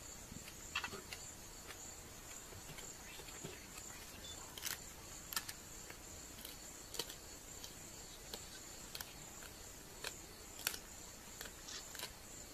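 Faint steady high-pitched insect drone, with scattered sharp clicks every second or two.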